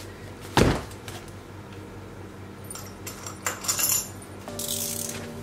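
A tape-wrapped cardboard parcel is set down on a desk with one heavy thud about half a second in. The box is then handled with crinkly scraping and rustling, and soft background music begins near the end.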